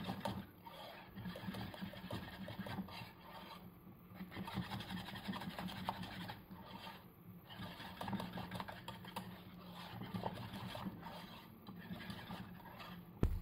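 Faint scraping and rustling: a wire whisk stirring thick orange curd in a metal saucepan, then plastic cling film pressed down over the pan, over a low steady hum. A short thump near the end.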